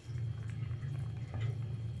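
Domestic cat purring steadily and low while it eats wet food, with a few soft chewing clicks.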